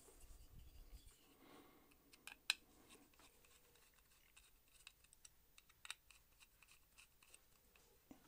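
Faint, scattered small metallic clicks and scrapes of a screwdriver working the pocket-clip screws on an aluminum-handled Spyderco PM2 folding knife, with a sharper click about two and a half seconds in and another near six seconds.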